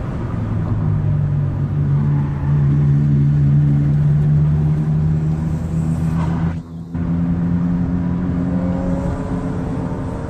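Car engine pulling steadily, heard from inside the cabin, with tyre and road noise. It drops out briefly about seven seconds in, then picks up again with its pitch slowly rising as the car accelerates.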